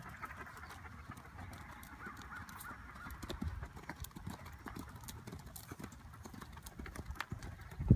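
Soft, irregular hoofbeats of a grey medium pony cantering on an arena's sand footing.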